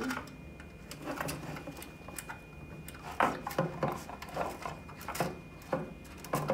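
Scattered small clicks and taps of hands handling the Flashforge Finder's red plastic filament loader and the filament as it is pushed into the loader's feed hole, most of them in the second half.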